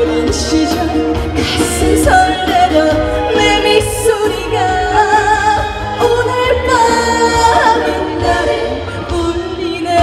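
A woman singing a trot song live into a handheld microphone over amplified band accompaniment, her voice wavering with vibrato on held notes.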